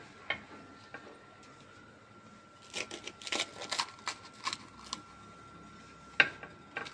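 Crisp fried kachori shells crackling as fingers press and break open their tops: a run of small crackles a few seconds in, then one sharp crack near the end.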